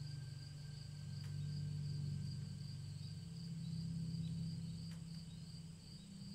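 Ambient meditation music: a low sustained drone that steps up in pitch about halfway through, with a steady high chirping of crickets layered over it.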